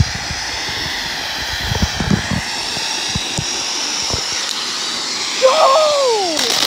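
Ground fountain firework spraying sparks with a loud, steady hiss, with crackling pops during the first two seconds or so. Near the end, a high-pitched cry rises and then falls.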